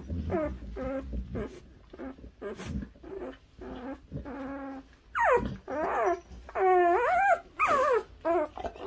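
A newborn puppy whining in a run of short, wavering high cries, soft at first and louder and closer together from about halfway through.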